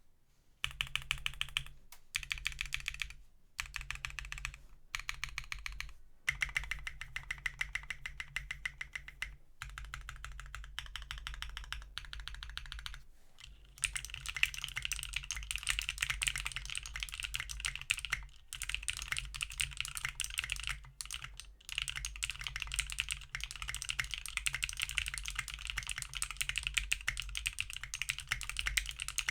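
Fast typing on an Array 65 O-ring-mounted 65% mechanical keyboard with Pink Robin switches, an FR4 plate and Tai-Hao keycaps: a dense run of keystroke clicks in bursts with short pauses, louder and steadier in the second half.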